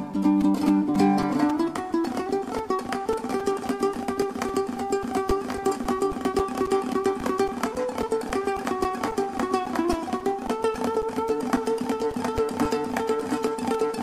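Kazakh dombra playing a küi with fast, even strumming. The melody steps up to a higher register about ten seconds in.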